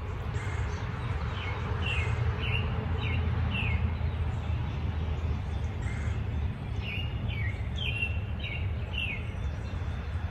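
A songbird singing two runs of about five short, quick downward chirps, one about a second and a half in and another about seven seconds in, over a steady low background rumble.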